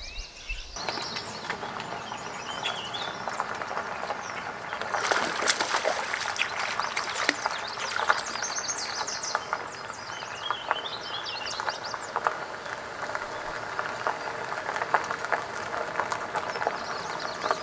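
Songbirds chirping and singing in short phrases, over a steady rustling hiss with scattered clicks that is loudest around five to eight seconds in.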